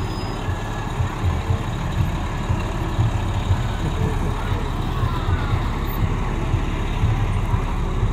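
A heavy vehicle's engine running with a low, uneven rumble, with faint voices in the background.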